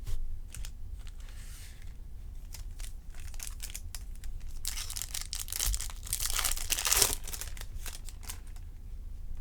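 Foil wrapper of a baseball card pack being torn open and crinkled, with scattered clicks of handling. The tearing and crinkling is densest and loudest from about five to seven seconds in.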